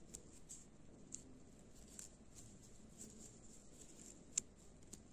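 Faint clicks and rustles of a crochet hook pulling cord through single crochet stitches, with one sharper tick about four seconds in.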